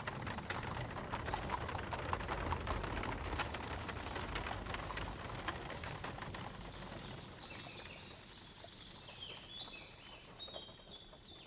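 Horse hooves clip-clopping along with a horse-drawn cart, a dense run of strikes that fades away over the first half. Small birds then chirp in short high notes.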